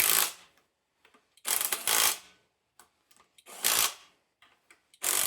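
Pneumatic wrench driving flywheel bolts into a Subaru 2.5 SOHC engine, running in four short bursts with the last one longer. The bolt threads are going in rough.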